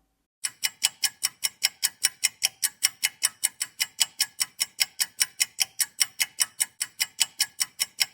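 Fast, even ticking, about five ticks a second, with no other sound between the ticks.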